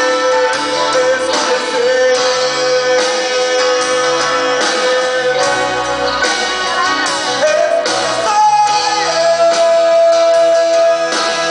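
Live pop-rock band music with guitar and drums under long held melody notes, which step up in pitch about eight seconds in.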